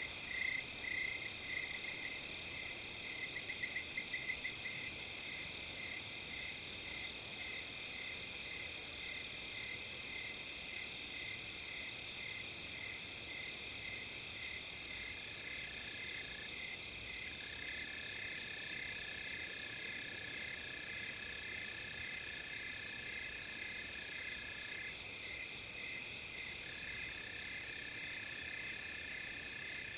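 Chorus of autumn crickets and other insects, bell crickets among them, several high steady trills layered over each other. A pulsing chirp repeats throughout, faster and louder in the first few seconds, and a lower steady trill joins about halfway, breaking off briefly twice.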